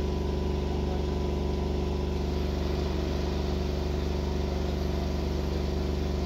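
A nearby vehicle engine idling with a steady, even hum that does not change in pitch or level.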